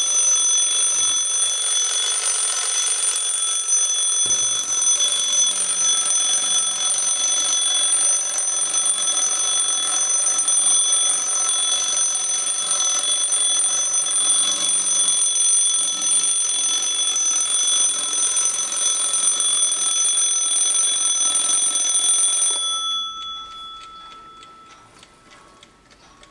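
Antique Junghans alarm clock's top-mounted bell ringing steadily and loudly as the alarm runs. It stops about three seconds before the end, leaving the bell's fading ring and the clock's soft ticking.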